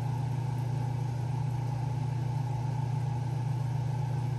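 Steady low machine hum with a faint hiss above it, unchanging throughout.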